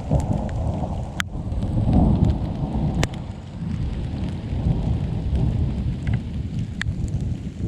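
Thunder rumbling low and long, loudest about two seconds in, over steady rain, with a few sharp taps of single drops striking close by.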